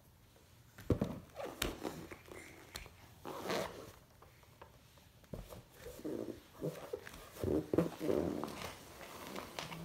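An inflated rubber balloon being batted, patted and pushed along a foam play mat by a baby's hands: irregular taps, knocks and rubbing, with the baby's small grunting vocal sounds mixed in.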